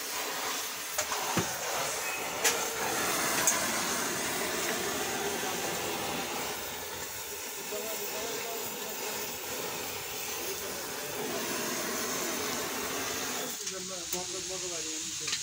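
Gas welding torch hissing steadily as its flame is played over a scooter's engine casing, with a few light clicks and taps in the first few seconds. The hiss drops away near the end.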